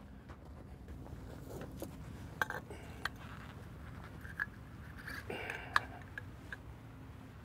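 Metal clinks and clicks as a tail end air gauge's glad hand is handled and coupled onto a rail car's brake pipe hose, with a brief rustle about five seconds in, over a low steady hum.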